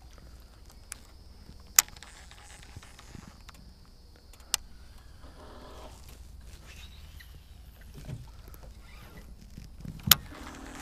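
Three sharp clicks or knocks, the loudest near the end, over a low steady rumble: fishing gear being handled in a jon boat while an angler flips a lure.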